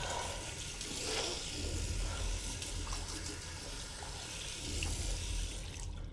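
Tap water running into a bathroom sink while hands wash and splash the face. The water cuts off at the end.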